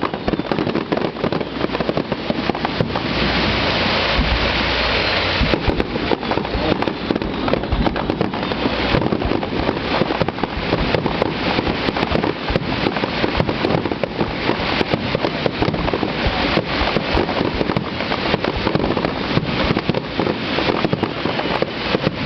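Fireworks display going off in quick succession: a dense, continuous crackle of many small bursts over a low rumble of bangs, heaviest about three to five seconds in.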